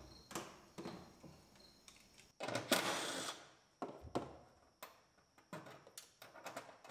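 Wiring harness being unclipped and handled on a bare truck cab floor: scattered light clicks and knocks, with one louder scrape lasting about a second a little under halfway through.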